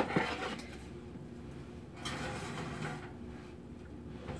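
A click at the start, then about two seconds in a faint second-long scrape as a metal baking sheet of cookie dough is slid onto the oven rack.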